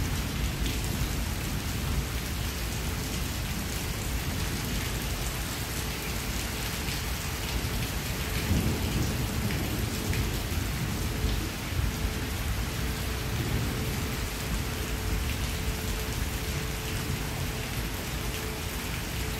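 Heavy rain pouring steadily on grass and foliage, a dense even hiss with a deep low rumble underneath that swells briefly about nine seconds in.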